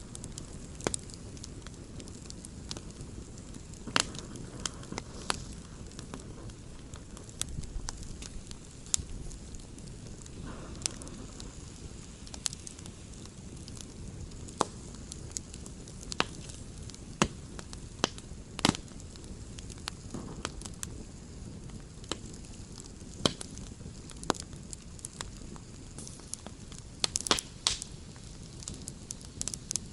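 Campfire crackling: irregular sharp pops and snaps over a steady low rush of burning, with a quick cluster of pops near the end.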